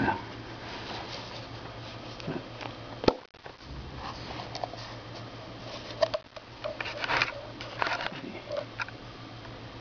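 Light handling noise: scattered small clicks and rustles, with a brief cluster of clicks about seven to eight seconds in, over a steady low hum.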